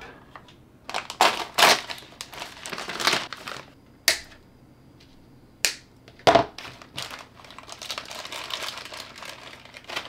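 Crinkling of a clear plastic bag and rustling of a coil of 3D-printer filament being unwound, broken by a few sharp clicks, among them the snip of flush cutters through the filament.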